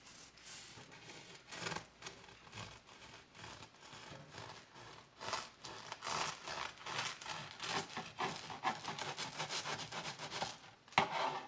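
Long bread knife sawing back and forth through a loaf of bread, with a rasping stroke on each pass. The strokes come quicker and louder in the second half, and the loudest one falls near the end.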